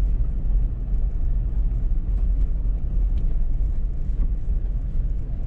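A vehicle driving along an unpaved farm road: a steady low rumble of engine and tyres, with a few faint small clicks.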